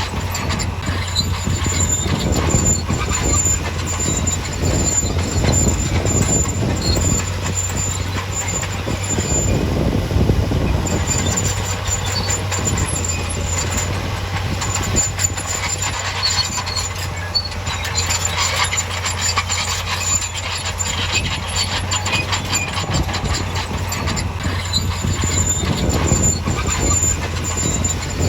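Heavy earthmoving machinery at work: a diesel engine running steadily under a continuous metallic clatter, with a high squeal that comes and goes.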